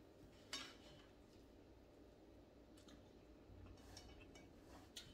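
Near silence: room tone with a few faint, short clicks of eating by hand at a plate, the loudest about half a second in.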